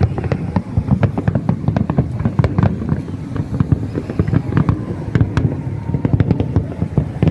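A large aerial fireworks display: a rapid, continuous barrage of shell bursts, bangs and crackles overlapping several per second over a low rumble.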